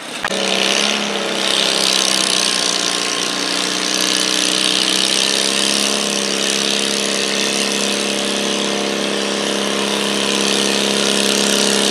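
Stock John Deere garden tractor's small engine held at full throttle under load while pulling a weight-transfer sled, running at a nearly steady pitch with a hiss over it.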